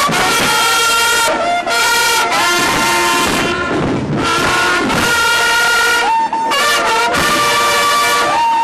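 Brass band of trombones and trumpets playing loudly, held notes changing from phrase to phrase with short breaks between them.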